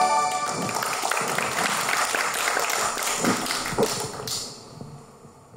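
The song's final sustained chord stops about half a second in, followed by an audience clapping: a dense patter of hand claps that thins out and fades away near the end.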